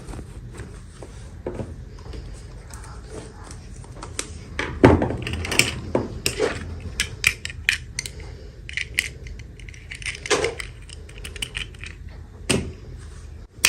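Small plastic toy pieces and packaging being handled and unboxed: irregular light clicks, taps and crinkling, with a louder knock about five seconds in and another near the end.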